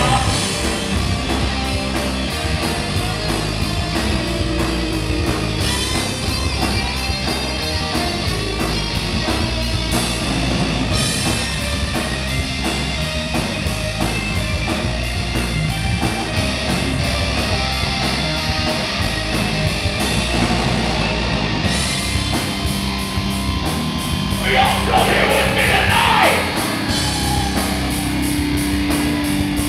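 Live heavy rock band playing a song, with dense, distorted band sound filling the whole stretch.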